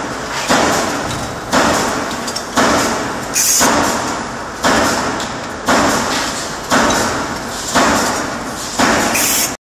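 Automatic multi-station hydraulic deep-drawing press line for pots, cycling at about one stroke a second; each stroke starts sharply and fades away. A short, high air hiss comes twice, and the sound cuts off abruptly just before the end.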